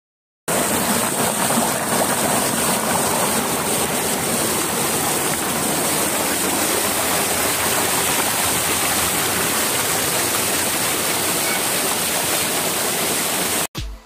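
Small waterfall pouring close up onto rock: a steady, loud rush of falling and splashing water. It cuts off suddenly near the end.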